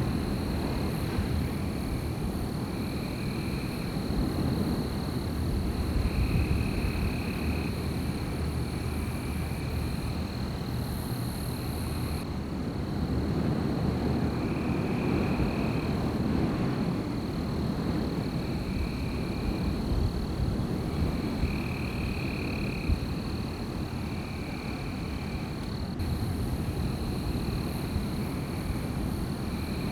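Wind blowing through a night forest as a low rumble that swells and eases in gusts. Over it runs a steady high, thin trill, with short higher calls about a second long repeating every couple of seconds.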